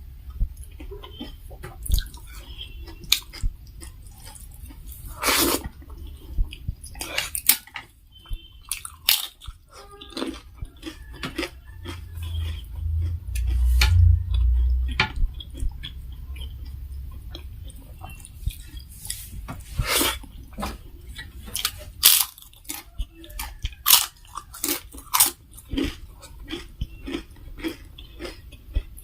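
Close-miked eating sounds: chewing and crunching of a dal bhat meal with papad and fritters, with many short sharp clicks scattered throughout. A low rumble swells briefly about halfway through.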